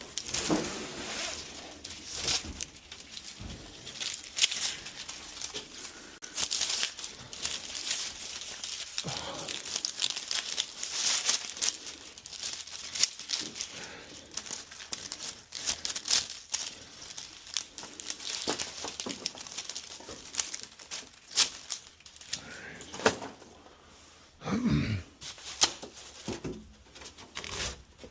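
Irregular crinkling, rustling and tearing of material being handled, with many short clicks and knocks in between.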